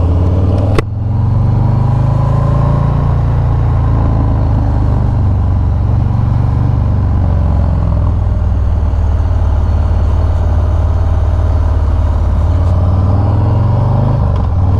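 A 2018 Harley-Davidson Sport Glide's Milwaukee-Eight 107 V-twin runs steadily under way through a Bassani Road Rage 2-into-1 exhaust, with a deep, even engine note. A sharp click and a brief drop come about a second in.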